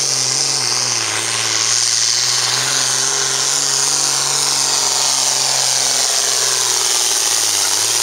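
John Deere hot farm class pulling tractor's turbocharged diesel engine running loud and steady at full throttle, under load while dragging the pulling sled.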